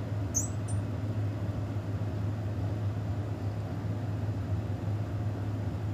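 Harig Super 612 surface grinder table being hand-cranked, its table cable drive turning the cable on its drum. There are two short high squeaks about half a second in, over a steady low hum.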